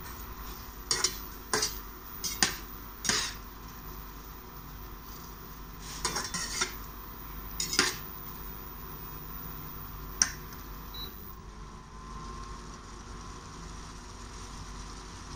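Perforated metal spatula scraping and clacking against a stainless steel frying pan while stir-frying chilies, in a scatter of separate strokes, a short flurry about six seconds in and one last knock about ten seconds in.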